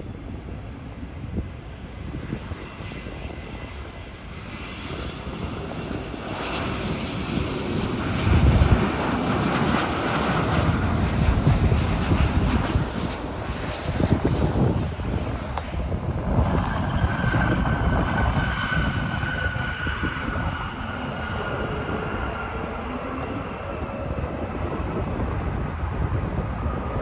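Jet airliner passing low overhead on approach to land. Its engine noise builds, peaks as it passes and slowly eases, with high whines that fall in pitch as it goes by.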